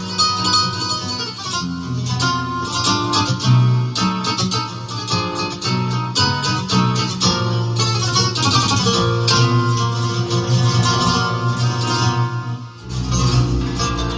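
Music from a Korg Pa5X arranger keyboard: plucked, guitar-like melody lines over a steady bass. A deeper bass comes in about thirteen seconds in.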